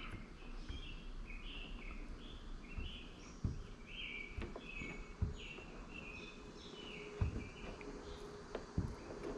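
Faint, repeated high chirps of a bird calling, about one every half second, with a few soft knocks of handling.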